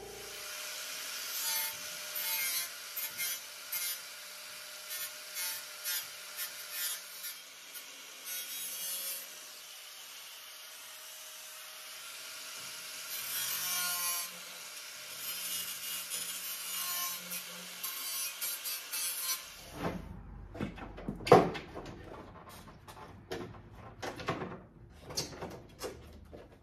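Angle grinder working the edge of a hole cut in the sheet-metal fender, a harsh grinding that swells and eases one to two times a second as it is pushed along the cut. After about 19 seconds it stops, followed by a run of sharp knocks and clatter.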